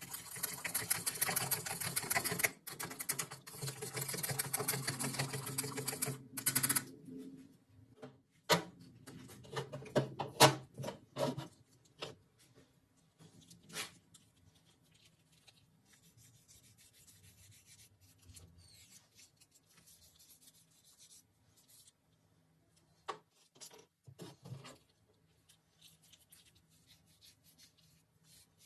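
Rapid scratchy rubbing by hand on a rifle part, as in sanding or filing, for about the first seven seconds, then scattered sharp clicks and knocks of parts being handled.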